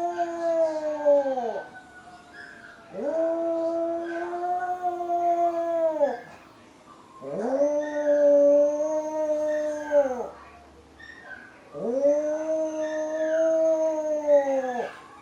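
Dog howling at passing police and fire sirens: long, steady howls that bend down in pitch at the end. One howl ends about a second and a half in, then three more follow, each about three seconds long, with short pauses between.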